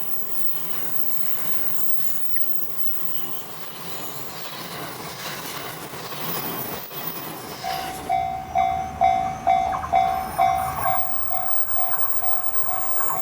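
Running noise of a train on the rails, then about eight seconds in a Japanese level-crossing alarm starts its quick, steady electronic dinging.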